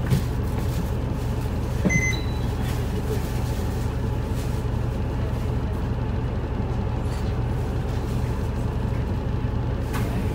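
Isuzu Erga city bus's four-cylinder diesel idling steadily while the bus stands still, heard from inside the cabin. A short electronic beep sounds about two seconds in.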